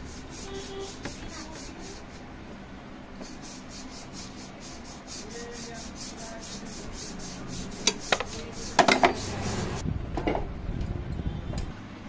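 Hands and tools rubbing and scraping on the rocker arms of a TVS Ntorq scooter engine while the tappet clearance is adjusted. A few sharp metallic clicks come about eight and nine seconds in.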